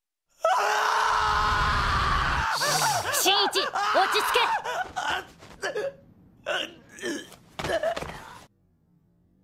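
A young man screaming, then strained, wavering cries and several short ragged gasping breaths that stop suddenly about a second before the end.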